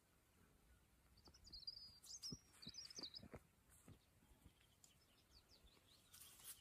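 Faint bird chirping: a quick run of high twittering calls from about a second in to past three seconds, with a few soft taps and a brief rustle near the end.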